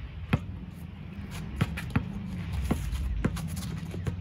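Basketball bouncing on an asphalt court: about seven sharp bounces at an uneven pace as the ball is dribbled, over a steady low background rumble.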